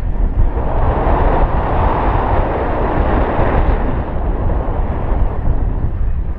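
Wind noise from the airflow of paraglider flight buffeting the microphone: a constant low rumble with a rushing hiss that swells louder about a second in and eases again after about four seconds.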